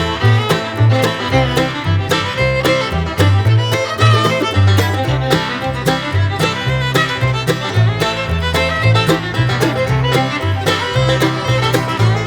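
Background music in a bluegrass style, fiddle and banjo over a steady beat and bass line.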